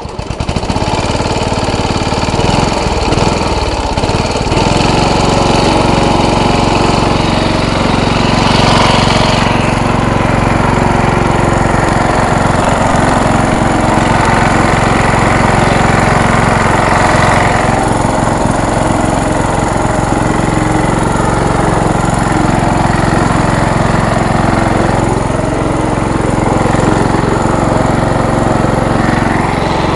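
Small engine of an MTD riding lawn mower running loud and steady. It comes in abruptly at the start, with a brief rise in brightness about nine seconds in.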